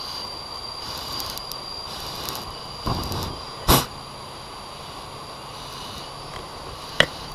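Handling noise from a honey hunter working up a tree while smoking a wild bee nest: a rough scrape just before three seconds, a loud sharp knock a moment later and a shorter click near the end, over a steady hiss and a thin, high, steady tone.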